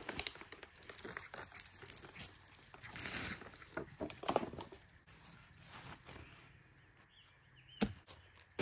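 Footsteps crunching on a dry pine-needle forest floor, with the rustle of a nylon sleeping bag being carried; irregular crunches for the first few seconds, then quieter, and a sharp click shortly before the end.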